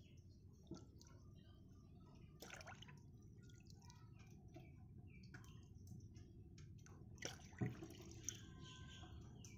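Faint small splashes and drips of water poured from a plastic cup into a plastic basin, with a sharper splash near the end.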